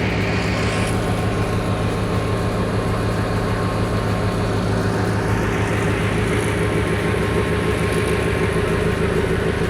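Diesel locomotive engine running steadily, a low, even hum with a faint steady whine above it.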